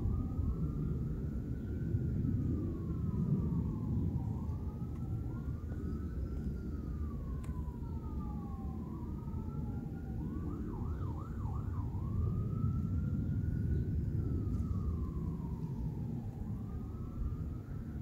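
Outdoor warning siren sounding a test wail: a slow tone rising and falling every few seconds, with several wails overlapping out of step with one another. About ten seconds in, it breaks into a quick warble of about four fast rises and falls. A loud low rumble runs underneath.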